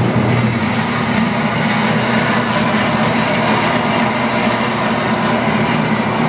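Lockformer 24-S bandsaw running steadily at speed with its blade running free, a motor hum under the whir of the blade and band wheels; it runs smoothly.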